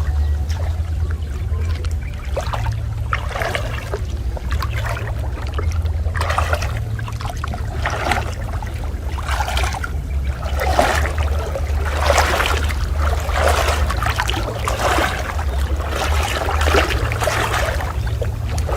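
Water sloshing and splashing in repeated strokes, roughly one a second, growing busier about a third of the way in, over a steady low rumble.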